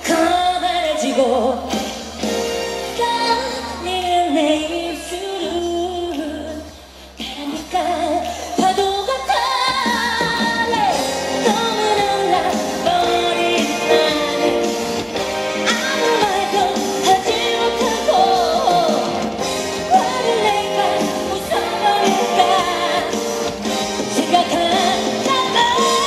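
A woman singing a Korean pop song live into a handheld microphone over a loud backing track through concert speakers. After a short lull about seven seconds in, the accompaniment fills out from about nine seconds.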